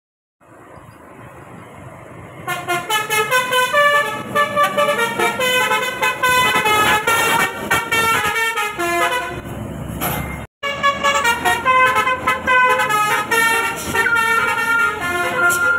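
Truck's Basuri telolet horn playing a quick melody of short notes stepping up and down in pitch, starting about two seconds in after a rising noise. It cuts out for a moment near the ten-second mark.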